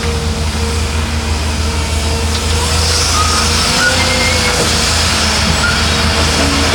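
Heavy diesel earth-moving machinery running steadily, a deep engine rumble with a steady whine over it.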